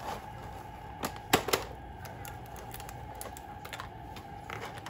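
Scattered light clicks and taps of small hard plastic pieces being handled: beads and little clear plastic cases knocking against a plastic craft-kit tray, the sharpest click about a second and a half in.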